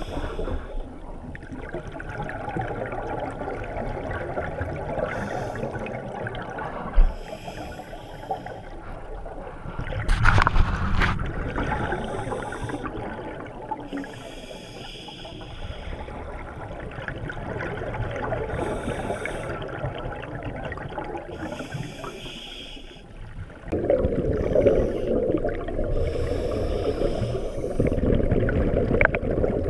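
Scuba diver breathing through a regulator, heard underwater: breaths and bubbling exhalations with no set rhythm. The bubbling is louder about ten seconds in and again from about twenty-four seconds on.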